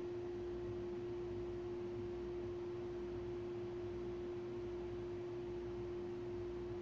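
A single steady pure tone, mid-low in pitch and unchanging, with a faint low hum beneath it.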